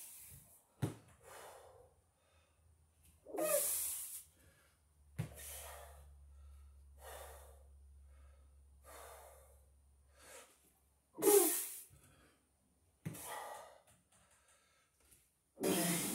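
A man's heavy breathing while doing pull-ups on gymnastic rings: hard exhales and gasps one every second or two. Two are much louder than the rest, one a few seconds in and one about two-thirds of the way through.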